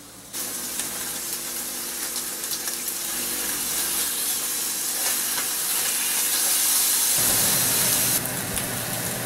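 Ground beef patties frying in a nonstick pan, a steady sizzling hiss that starts abruptly about half a second in and eases slightly near the end.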